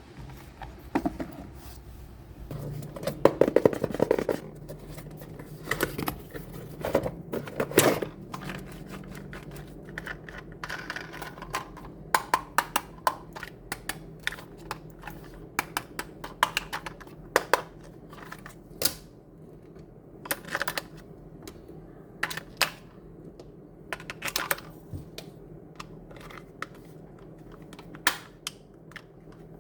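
Irregular clicks, taps and light rattles of small die-cast toy trucks being handled, with a busier run of knocks early on. A faint steady hum lies underneath.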